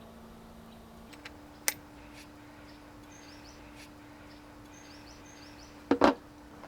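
Sharp plastic clicks from handling a STIHL PolyCut cutting head while its blades are changed: a single click about two seconds in, then a loud double snap near the end, over a low steady hum and faint bird chirps.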